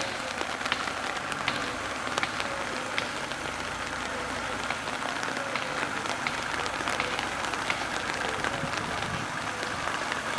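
Rain pattering steadily, with many small drop ticks. Under it, the Mercedes G-Class pickup's engine runs low as the truck crawls slowly.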